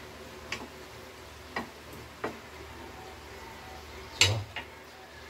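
A cooking utensil clicking a few times against a frying pan of vegetables being stir-fried, with a louder knock and a low thud about four seconds in, over a faint steady hiss.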